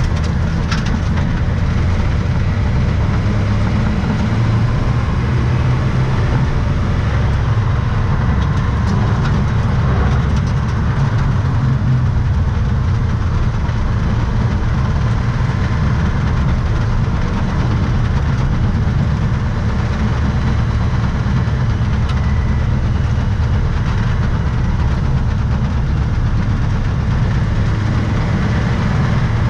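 Car engine and road noise heard from inside the cabin while driving on a race circuit: a loud, steady low drone with no clear rises or falls.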